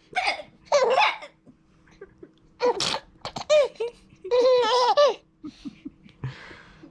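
Baby laughing in repeated bursts of pitched, wavering giggles, the longest about four to five seconds in. A short sharp burst about three seconds in and a breathy burst near the end break up the laughter.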